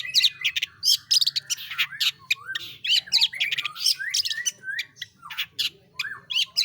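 Long-tailed shrike (pentet) singing hard: a fast, continuous run of sharp, harsh chattering notes and quick whistled glides, delivered in rapid-fire bursts, the 'roll tembak' style prized by bird keepers.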